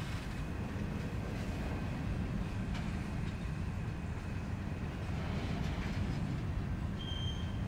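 Train rolling by with a steady low rumble of wheels on rails, with a short high squeal near the end.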